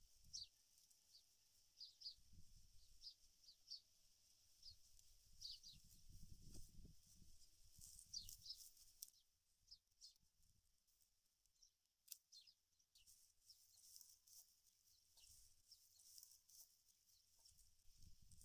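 Near silence, with faint, short, high bird chirps repeating about once a second for the first half and a few more near the end. Under them is a soft low rustle of hands working the dry palm fibre and cord.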